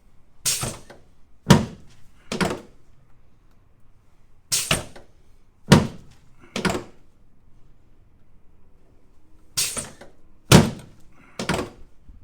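Chiropractic adjusting table thunking during thrusts to the sacroiliac joints of the pelvis: nine sharp thunks in three groups of three, about a second apart within each group.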